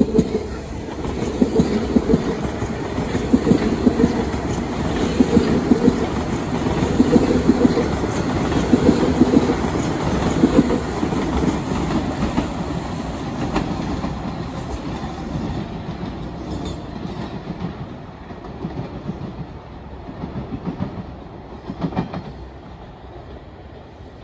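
Toronto Rocket subway train passing close by on open track, its wheels clattering rhythmically over rail joints and crossover switches about once a second. The clatter is loudest for the first ten seconds, then fades as the train moves away, with a few last clicks near the end.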